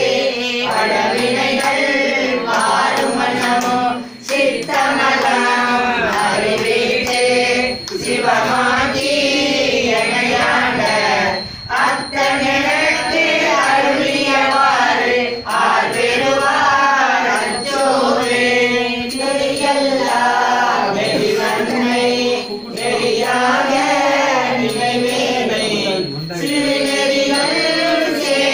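A group of voices singing Tamil devotional verses together from books, a slow melodic chant in phrases of a few seconds with short pauses for breath between them. A faint steady high whine runs underneath.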